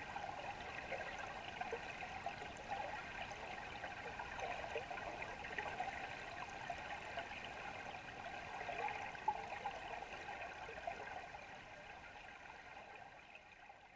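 River water heard through an underwater camera: a steady rush of flowing water with fine crackles, fading away over the last few seconds.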